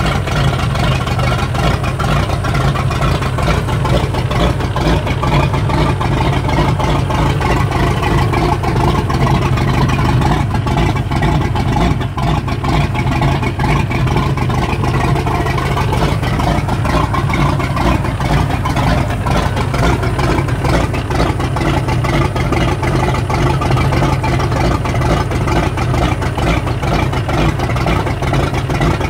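Sterndrive boat engine idling steadily on a garden-hose water supply, its exhaust coming out through the propeller hub, with water spraying from the drive. The engine is leaking oil out the exhaust, which the owner traces to bad valve seals.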